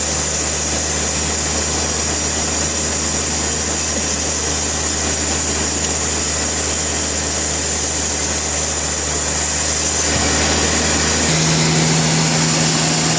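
Sawmill machinery running with a steady engine-like hum. About ten seconds in the sound changes and settles onto a different steady pitch.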